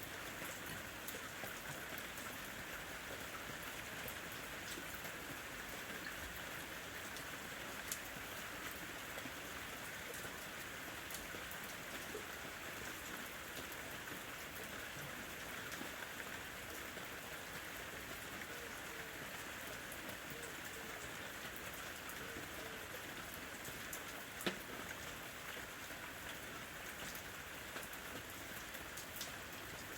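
Steady rain falling, an even hiss with scattered individual drops ticking on a surface; two sharper single drop hits stand out, about eight seconds in and again about six seconds before the end.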